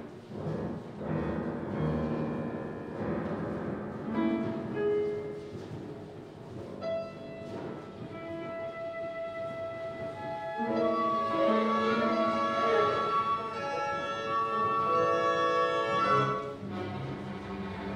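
Live orchestra playing, with bowed strings and flutes holding long notes; the music swells louder about two-thirds of the way through, then eases off shortly before the end.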